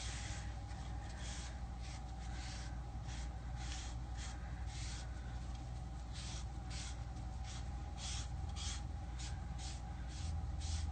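Wet wipe rubbing over a painted stencil panel: a run of soft swishing strokes, about two or three a second. The paint is being wiped off the areas where gloss medium was stenciled, so the design shows through.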